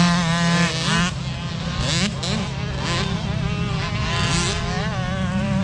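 Dirt bike engines revving, their pitch climbing and dropping again and again with the throttle, over a steadier low engine drone.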